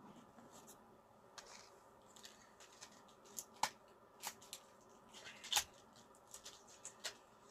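Faint, scattered clicks and rustles of objects being handled, a few sharper ticks standing out among them.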